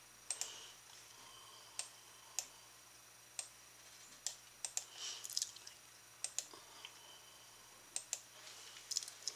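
Faint, irregular clicks at a computer keyboard and mouse, about a dozen, some single and some in quick pairs, while screen sharing and a PowerPoint slideshow are being set up.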